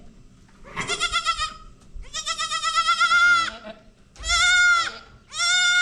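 Goat bleating: four loud, high-pitched bleats in a row, the second one long and drawn out.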